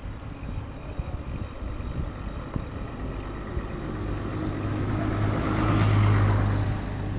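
Heavy flatbed truck approaching and passing close by, its engine hum and tyre noise growing louder to a peak about six seconds in, then easing off.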